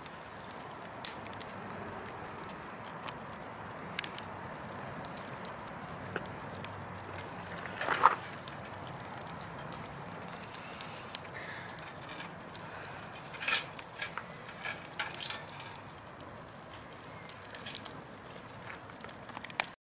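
Log bonfire burning: a steady rush of flame with scattered sharp crackles and pops. The loudest is a pop with a short hiss about eight seconds in, and a run of pops follows in the second half.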